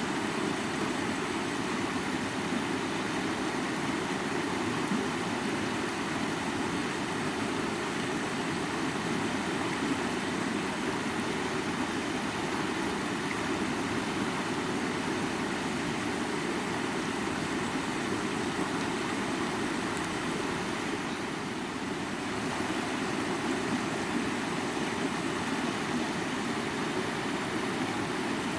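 A flowing river: a steady, even rush of water.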